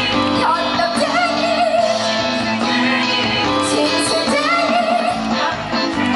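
Live band music, with a singing voice carrying a melody with heavy vibrato over sustained accompaniment.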